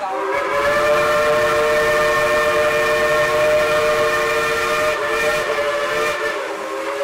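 Steam whistle of the Dollywood Express's coal-fired Engine 70 blowing one long, steady blast of several notes at once, a chime chord, wavering briefly about five seconds in.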